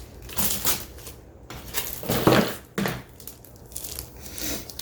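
Packaged craft supplies being handled: a few short rustles and knocks of packs being moved and set down, the loudest about two seconds in.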